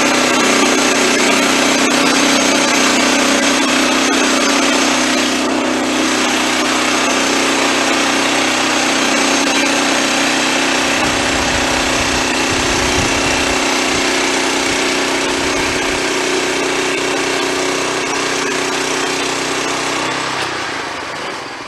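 Wood-Mizer LX25 portable band sawmill running at full throttle, its band blade cutting a slab off the top of a log. The steady drone eases off near the end.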